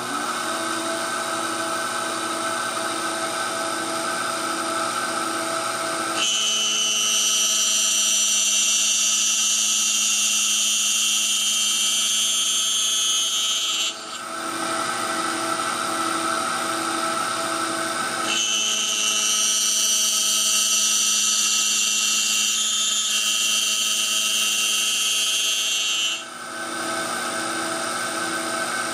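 A small CNC machine's spindle running steadily as it mills a wooden ring insert. A louder, higher whine comes in from about six seconds in and runs for some eight seconds, stops, and then returns for another eight seconds or so, which points to the cutter working into the wood.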